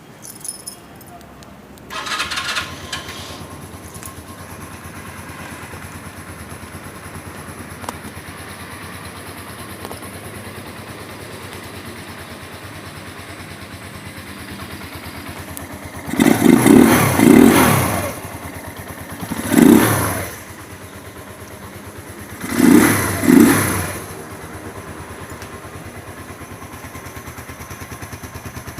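Rusi RKS 150 motorcycle engine starting, then idling steadily with the intake sound of its airbox and replaced air filter. About halfway through the throttle is blipped five times in three groups: two quick revs, one, then two more, each dropping back to idle.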